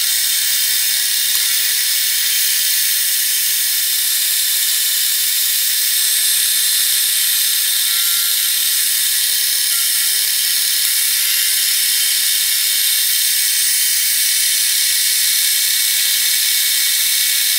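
End mill on a milling machine cutting the side of a metal block: a steady, high-pitched cutting hiss and whine as chips are thrown off.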